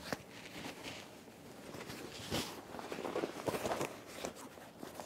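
Quiet rustling and shuffling with a few small knocks and clicks, the sharpest about two and a half seconds in, as people move about at study desks.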